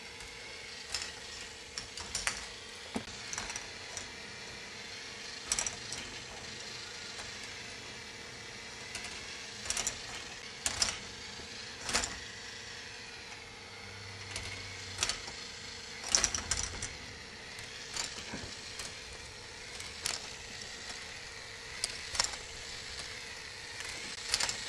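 K'nex slider ball lift running: a steady motor hum with sharp plastic clicks and clatters every second or two as balls are raised and roll along the plastic track.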